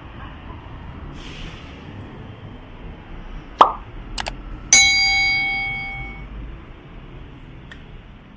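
A short pop, two quick clicks, then a single bright metallic ding that rings on with several tones and fades over about a second and a half. All of this sits over a low, steady street background.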